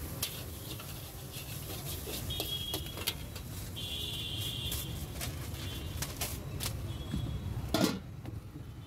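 Metal spatula scraping and clacking against a large iron wok as egg bhurji is stirred, with a couple of brief high squeals and a louder knock near the end, over a steady low rumble.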